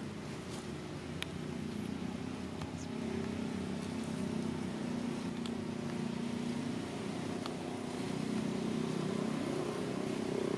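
An engine running steadily, a low drone that climbs a little in pitch in the second half, with a few faint sharp ticks over it.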